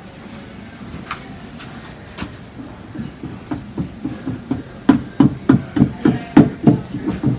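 Bowl scraper dragged back and forth over the hardened, textured cold wax and oil surface of a wooden cradled panel, making a run of scraping knocks. The knocks start faint and grow loud and regular, about three a second, from about five seconds in.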